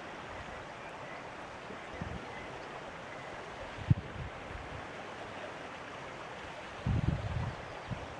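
Steady rush of water lapping in a rocky sea cove, with a sharp low thump about four seconds in and a short cluster of low thumps near the end from wind buffeting the microphone.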